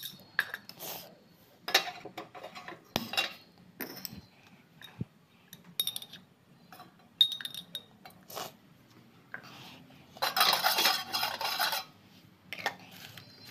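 Spoon clinking and scraping against a dish as sugar is stirred into a little water for a syrup. The knocks come irregularly, with a longer, louder stretch of stirring about ten seconds in.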